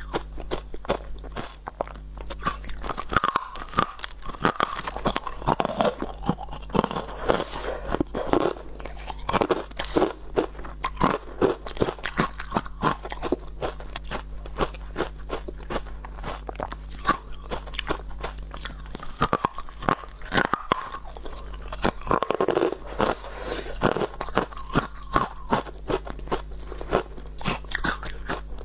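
Close-miked biting and chewing of frosty white ice chunks: a dense, continuous run of crisp crunches.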